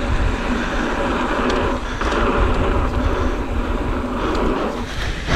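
Mountain bike riding fast down a dirt jump trail: tyres rolling over dirt and wind buffeting the microphone, with a few small clicks and knocks from the bike.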